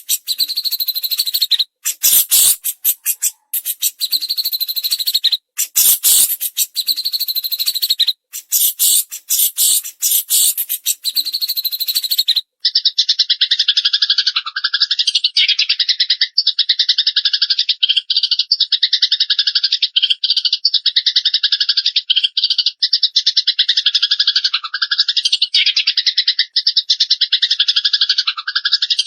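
Fast, loud songbird chatter from Eurasian tree sparrows and cililin (pygmy tit): rapid, very high twittering with short breaks, changing about twelve seconds in to a continuous dense, pulsing trill.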